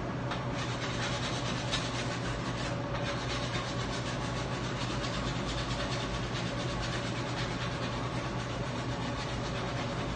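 Steady droning hum and rush of a bagel bakery's wood-fired oven and overhead ventilation, with a few light wooden knocks from long bagel boards being handled in the first couple of seconds.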